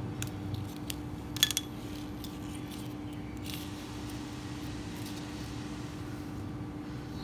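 Diagonal cutters snipping monofilament fishing line: a few small clicks, then a sharper double snap about a second and a half in, over a steady low hum.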